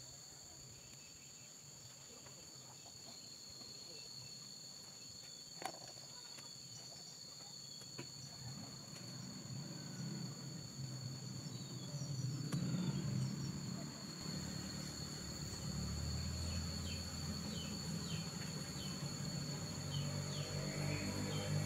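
Steady high-pitched insect chirring from crickets or cicadas. There is a sharp knock about six seconds in and a lighter one near eight seconds. From about halfway through, a low hum rises and grows steadily louder.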